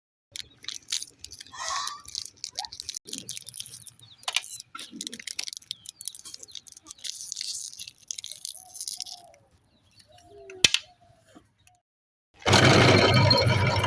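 Hard candy-coated chocolate balls rattling and clicking as they are handled, in irregular clusters, with one sharp click later. Near the end the meat grinder's motor switches on and runs loudly and steadily.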